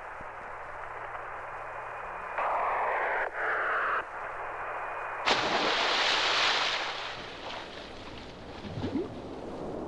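Radio-transmission static hiss with a faint steady whistle, growing louder after about two seconds and breaking off. About five seconds in, a sudden loud rush of noise starts and dies away over a couple of seconds. Near the end come short wet squelching glides.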